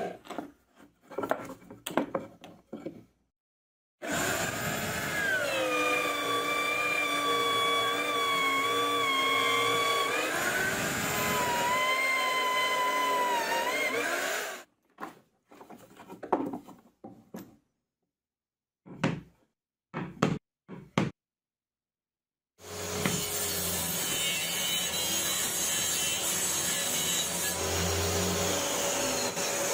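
A drill press bores holes in plywood with a Forstner bit, its motor tone dropping as the bit bites in and rising again as it clears. After a stretch of short knocks and silences, a table saw runs steadily, ripping through a plywood strip.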